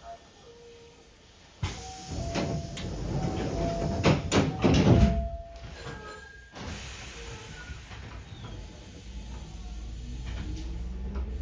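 Hankyu 5300-series train's pneumatic sliding doors working: a sudden hiss of air with clunks and rattles lasting about five seconds. Near the end, the traction motors start to whine, rising in pitch as the resistance-controlled train pulls away.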